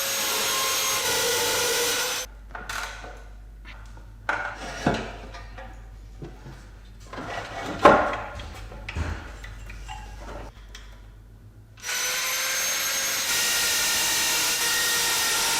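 A power tool runs with a steady whine, then stops. A quieter stretch of sharp knocks and clattering from workpiece and hand tools follows, with the loudest knock near the middle. The power tool then starts up again for the last few seconds.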